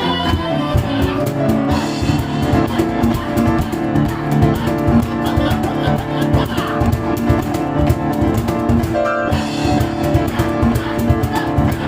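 Live piano and cajón duo playing, with dense piano lines over steady hand-drum strikes and a short break about nine seconds in.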